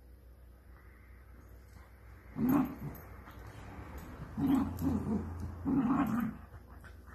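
Dachshunds growling in play as they wrestle over a toy, in three short rumbling bouts: one about two and a half seconds in, a longer pulsing one near the middle, and a last one about a second later.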